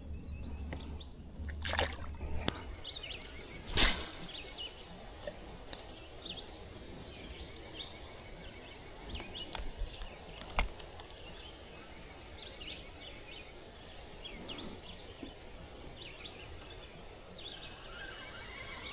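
Water sloshing against a kayak, with birds calling and a few sharp knocks, the loudest about four seconds in.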